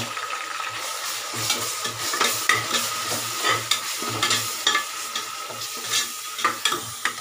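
Onions and ginger-garlic-chilli paste sizzling in hot oil and ghee in an aluminium pressure cooker, stirred with a spatula that scrapes and knocks against the pot with irregular clicks.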